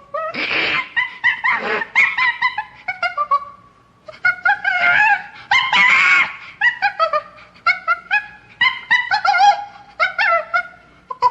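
Chimpanzee calling: noisy screams mixed with rapid strings of short pitched hoots and barks, in two bouts with a brief lull about four seconds in.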